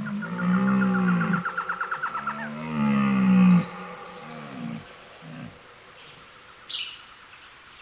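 Low, drawn-out animal calls, two long ones with a rising-and-falling pitch in the first half, with a quick pulsing sound between them, then fainter calls.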